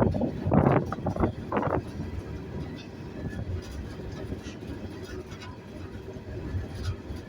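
Freight train coal car rolling slowly, heard from aboard: a steady low rumble of wheels on rail, with a few louder knocks and rattles in the first two seconds.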